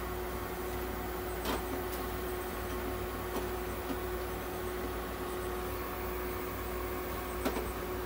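Nebulizer running for inhalation therapy: a steady hiss with a low hum and a faint steady whine, and a few faint clicks.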